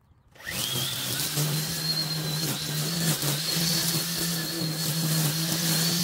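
String trimmer starting up about half a second in, its whine rising quickly, then running steady as its line cuts through long wet grass.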